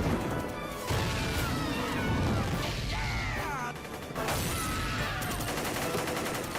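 Cartoon battle sound mix: gunfire and crashes over background music, with sudden loud hits at the start, about a second in and about four seconds in.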